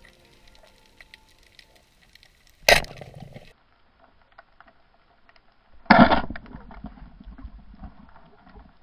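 Band-powered speargun fired underwater at a hogfish: a sharp crack about six seconds in as the rubber bands release, followed by a low rumble for about a second. A shorter sharp crack comes about three seconds earlier, with faint clicking throughout.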